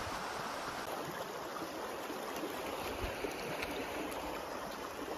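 Shallow river running steadily over stones and rocks.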